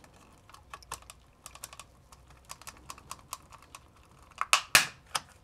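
A flat-blade screwdriver prying at the seam of a snap-fit plastic adapter case: a run of small plastic clicks and scrapes, then two loud sharp snaps near the end from the case's clips.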